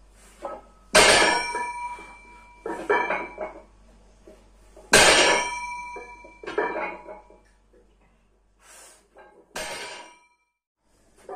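Cast-iron weight plates clanking against each other and against the bar: two loud, ringing metal clangs about a second in and about five seconds in, with smaller knocks and clinks between them.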